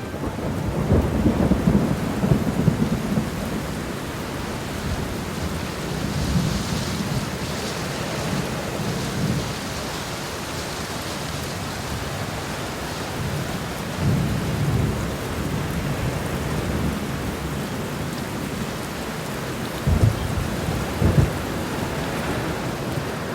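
Steady hiss of heavy falling water, like rain, with deep rumbles that swell and fade, and two short low thumps near the end.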